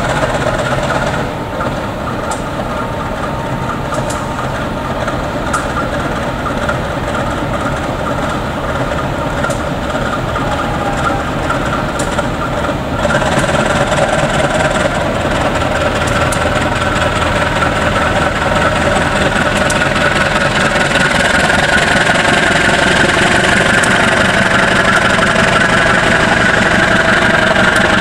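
Diesel-electric locomotive engine running at the head of a passenger train, first at a steady idle. It grows louder in a sudden step about halfway through and climbs again later as the locomotive is throttled up to pull away from the station.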